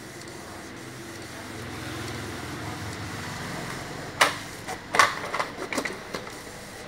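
Printed paper sheets being handled over a low steady machine hum: two sharp clicks about a second apart, then a few smaller clicks and rustles.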